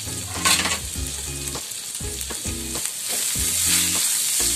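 Yardlong beans, onion and green chilli sizzling in hot oil in a nonstick frying pan while being stirred with a spoon. The spoon scrapes and taps against the pan, and the sizzle grows louder about three seconds in. A low hum comes and goes underneath.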